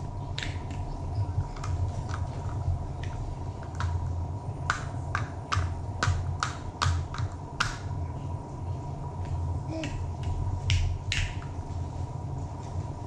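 Light plastic clicks and taps of toy stacking cups knocking together as a baby handles them, with a quick run of about seven clicks around the middle and a couple more near the end, over a steady low hum.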